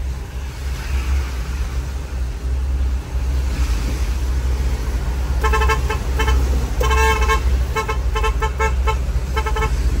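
Basuri musical air horn sounding a rapid run of short toots, a few a second, with one longer blast in the middle, starting about halfway through, over the steady low rumble of the vehicle on the road.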